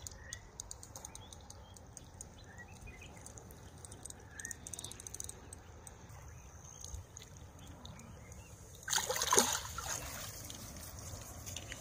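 Water splashing for about a second and a half near the end, from a hooked fish thrashing at the bank as it is landed; before that only faint outdoor background with a few small ticks.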